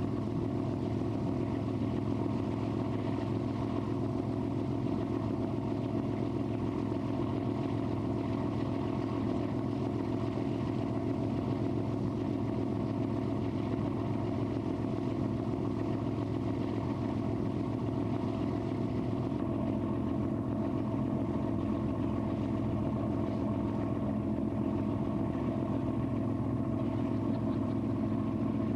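Lake cruise boat's engine running steadily, heard on board: an even drone with a low hum and several steady tones that hold throughout.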